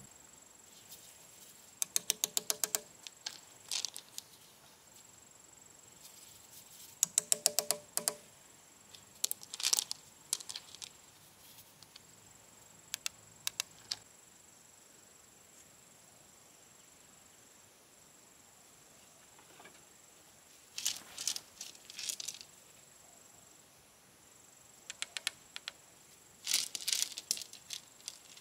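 Bricklaying by hand: a steel trowel tapping and scraping on bricks and mortar in several short bursts of quick sharp clicks, some with a brief metallic ring, and loose pebbles clattering. A faint, steady, high insect note sounds underneath.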